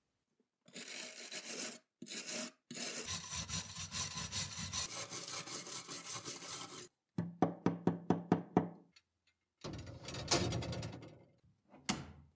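A stiff bristle brush scrubbing rust off a cast-iron coin bank plate in quick back-and-forth strokes, in several separate bursts with gaps between. Near the end come a couple of short metal clicks from a cabinet latch.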